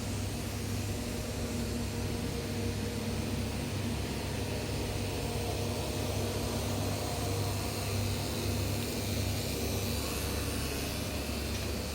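Esprit CNC plasma cutting table with a Hypertherm MAX200 plasma system running during a test cut: a steady electrical hum under an even hiss.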